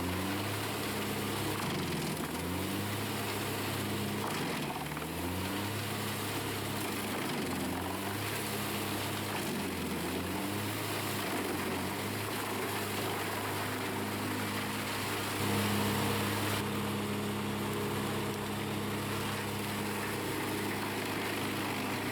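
Large industrial wood chipper running, its engine holding a steady note that sags briefly in pitch every couple of seconds, over a broad mechanical noise.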